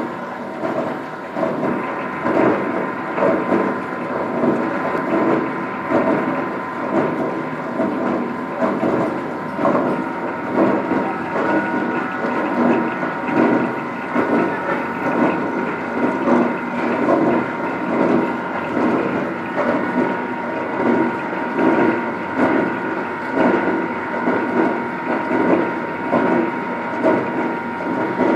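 Belt-driven heavy facing milling machine running, with a steady whine and a regular pulse about once a second.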